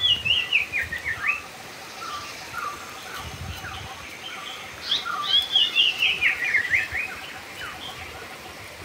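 Songbird singing: a quick run of high chirps and whistled notes at the start, and a second, similar run about five seconds in.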